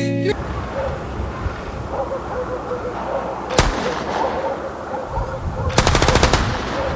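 Gunfire: a single shot about three and a half seconds in, then a rapid burst of automatic fire of about ten rounds near the end, over a steady background noise.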